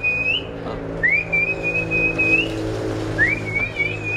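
A person whistling to call a monkey: long whistles that scoop up, hold one steady pitch and lift slightly at the end, repeated about every two seconds, three times, over a steady low hum.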